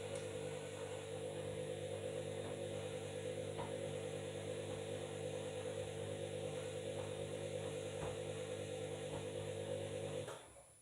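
Washing machine running with a steady motor hum of constant pitch and a fast fluttering pulse, which cuts off abruptly near the end.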